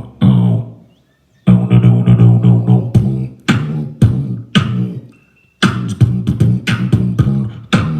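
Beatboxing: sharp mouth-made drum hits over a hummed, pitched bass line in a steady hip-hop rhythm, breaking off briefly about a second in and again after about five seconds.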